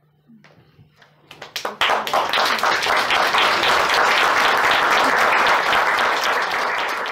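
Audience applauding: a few scattered claps at first, then a full round of dense clapping from about two seconds in, easing slightly near the end.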